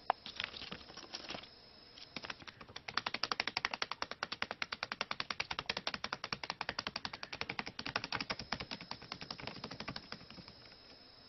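A small parrot pecking rapidly at paper: a fast, even run of dry taps, several a second. They start about two seconds in and die away near the end.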